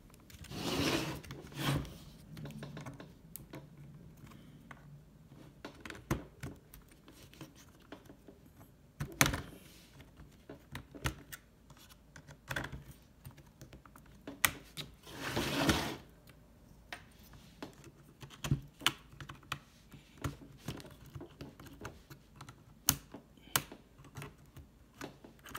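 Plastic opening tool prying the keyboard deck off an HP laptop: irregular sharp clicks and snaps of the plastic case and its clips as they give. There are longer scraping stretches about a second in and again around the middle.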